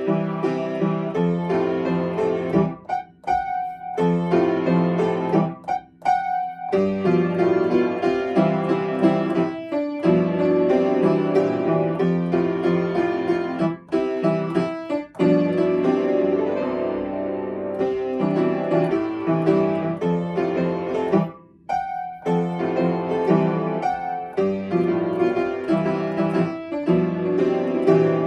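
Upright piano playing a children's animal song, melody over chords, stopping briefly three times between phrases.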